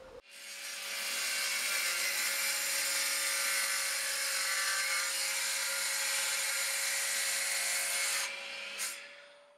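Homemade chop saw, driven by a vacuum-cleaner motor through a broken angle grinder's gearbox, running and cutting through a wooden board: a steady whine with the hiss of the blade in the wood. It starts just after the beginning and dies away about a second before the end.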